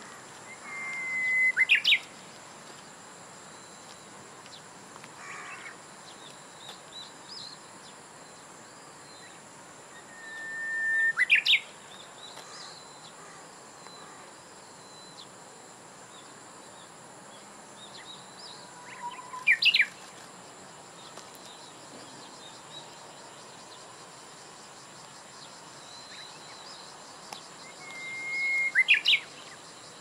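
Japanese bush warbler singing its "hoo-hokekyo" song four times, about every nine seconds: a held whistle that swells in loudness, then a quick flourish of rising and falling notes.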